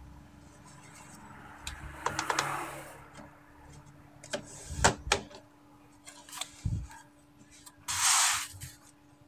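Plastic clicks, knocks and short scrapes from hands working on an opened Epson L-series ink tank printer's mechanism, with a louder scrape about eight seconds in as its white plastic cover is fitted back on. A faint steady hum runs underneath.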